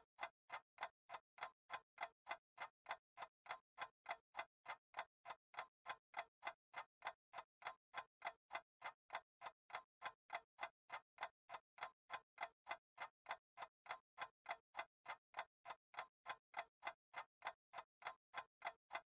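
Stopwatch ticking sound effect: even, steady ticks at about three a second, the sound of a timer marking off the seconds of a timed exercise.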